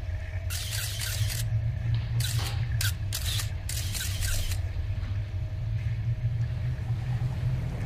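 Muffled underwater pool sound picked up through a camera's waterproof housing: a steady low rumble, with five short hissing bursts in the first half.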